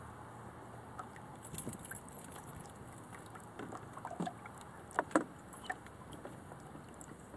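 Light clinks, rattles and knocks from the fittings and hull of a small sailing dinghy, a Bauer 10, over a steady hiss. Two sharp knocks about five seconds in are the loudest.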